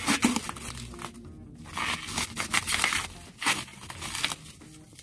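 Plastic wrap and bubble wrap being crinkled and torn off a packed lightsaber by hand, in several bursts of crackling rustle.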